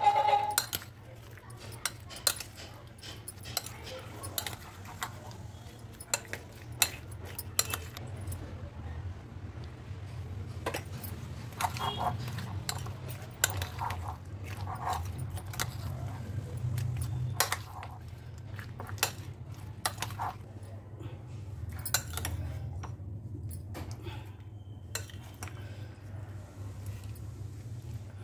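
Kitchen utensils clinking and tapping against dishes in irregular, scattered knocks, over a steady low hum.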